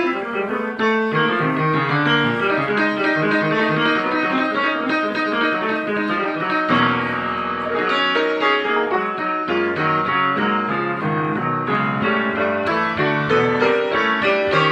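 Instrumental background music, piano-led, with many quick notes running on without a break.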